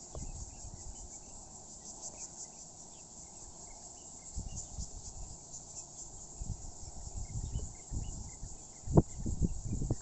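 Insects, crickets, trilling steadily in a high, finely pulsing chorus. Low rumbling builds toward the end, and a sharp thump about nine seconds in is the loudest sound.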